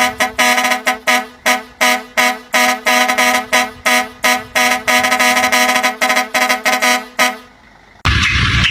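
A truck's musical air horn playing a tune in quick staccato blasts over a steady low tone. It stops about seven seconds in, and a different loud, noisy sound starts near the end.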